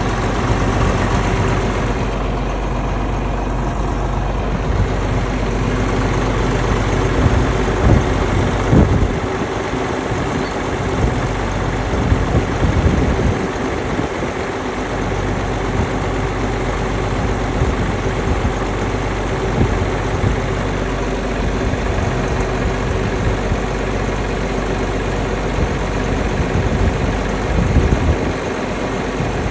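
A heavy engine idling steadily, with a few brief louder moments.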